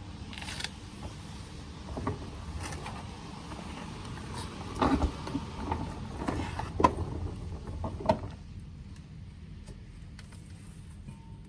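Scattered short clicks and knocks of parts and tools being handled, over a steady low workshop hum; the sharpest knocks come about five and seven seconds in, then it goes quieter.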